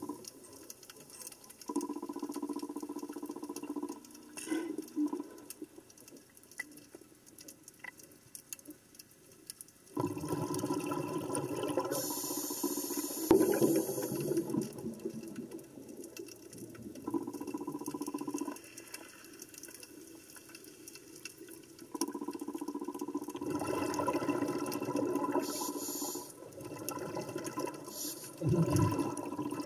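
Underwater water sounds: muffled bubbling and rushing that comes and goes in stretches of a few seconds, with quieter gaps between and a brief high hiss now and then.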